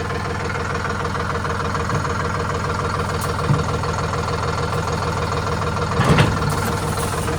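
Vehicle engine idling steadily, with a single knock about three and a half seconds in and a brief, louder clatter of knocks about six seconds in.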